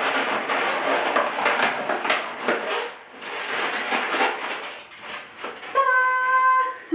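Inflated latex balloons rubbing and squeaking against each other in the hands as a small pink nose balloon is worked into place on a balloon hamster's head. Near the end comes one steady held squeal-like tone lasting about a second.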